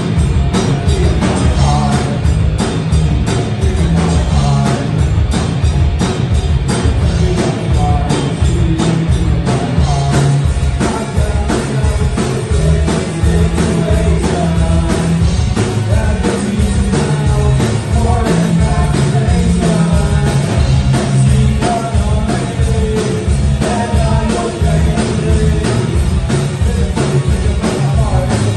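Live rock band playing loud: electric guitars over a steady driving drum beat, with singing, heard from the audience in the club.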